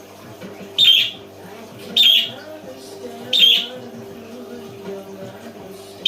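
A bird calling loudly three times, about a second and a quarter apart, each call short and shrill.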